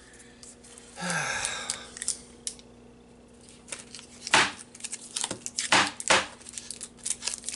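A Walker's banana toffee bar in its plastic wrapper crinkles in the hands about a second in. It is then whacked hard against a board, three loud sharp whacks in about two seconds, to break the toffee inside before unwrapping, with the wrapper rustling between the whacks.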